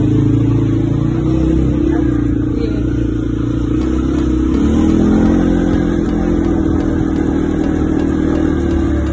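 ATV (quad bike) engine running under the rider while it drives along a dirt trail. Its pitch shifts up and down with the throttle about halfway through.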